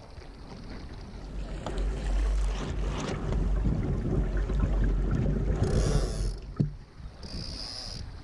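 Wind buffeting the microphone with water rushing along a Laser sailing dinghy's hull, swelling for several seconds in the middle, and one sharp knock about six and a half seconds in.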